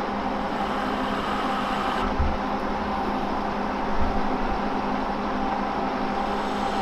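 Monarch CY engine lathe running, taking a finishing turning pass on a steel rod: a steady machine hum with the cutting noise over it, and a couple of soft low thumps about two and four seconds in.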